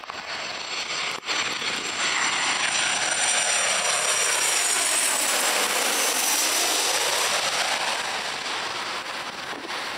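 Boeing 737 jet airliner passing low overhead on landing approach, gear down: the jet engine noise swells to its loudest with a high whine and a sweeping, phasing tone as it goes over, then fades.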